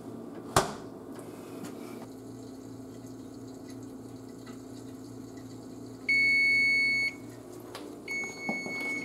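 Oven timer going off, signalling the set cooking time is up: two steady single-pitch beeps about a second long each, the first about two-thirds of the way through and the second near the end. Before them there is a single sharp click over a steady low hum.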